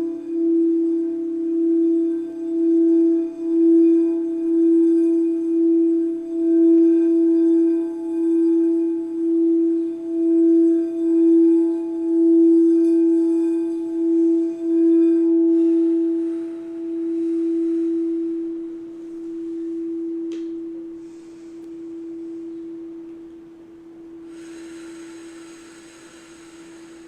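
Crystal quartz singing bowl sounding one strong, steady note with an even pulsing wobble. About fifteen seconds in, the note stops being sustained and slowly rings away. Near the end, a brief high shimmer of bright tones sounds over it.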